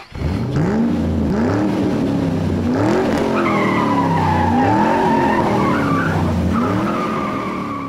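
Car engine revving hard up through the gears, its pitch climbing and dropping back at each shift, with a tire squeal coming in over the second half.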